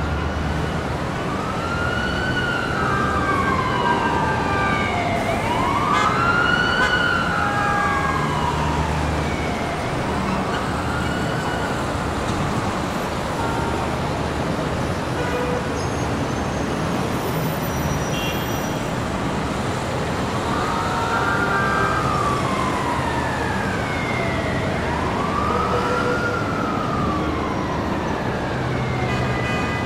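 Emergency vehicle siren wailing in slow rise-and-fall sweeps, one about every four to five seconds, fading for a while in the middle before coming back. Steady city traffic rumble runs underneath.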